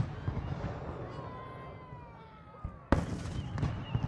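Aerial fireworks shells bursting: one sharp bang about three seconds in, followed by a smaller crack, over a low crowd murmur. A faint wavering whistle glides down a little before the bang.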